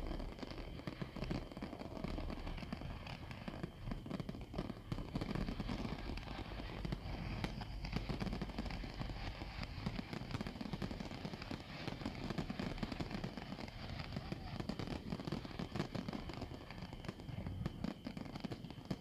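Fireworks display with many shells bursting at once: a dense, continuous stream of bangs and crackling with no break.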